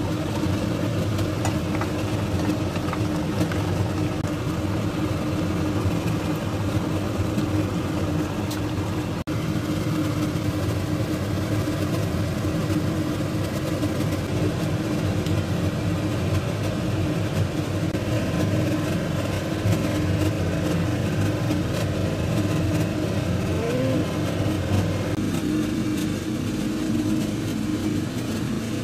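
A steady mechanical hum with a low drone, running evenly without pauses.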